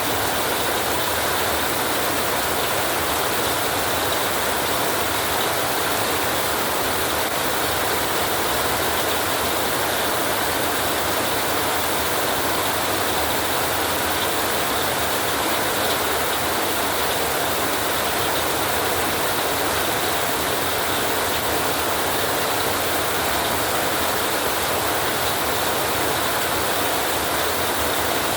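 Heavy rain falling steadily on a tin roof: a dense, even hiss that does not change.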